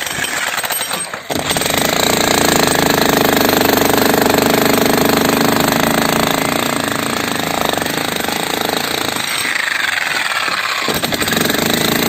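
Jackhammer breaking up an old concrete slab: a fast, steady rattle of chisel blows that pauses briefly about a second in, then runs on.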